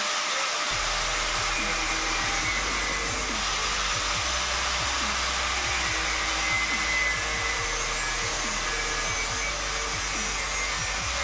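Electric angle grinder running steadily with its cutting disc slicing into a plastic feature phone's body, making an even, high whirring grind.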